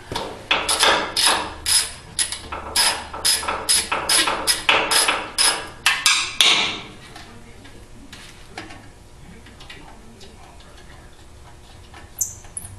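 Ratchet socket wrench working a bolt loose on a small engine's cover: a quick run of sharp metallic clicks, about three a second, that stops a little past six seconds in.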